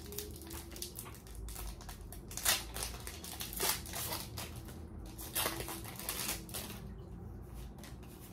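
Foil Pokémon booster pack wrapper crinkling and rustling as it is opened by hand and the cards are slid out, with louder crinkles about two and a half and three and a half seconds in.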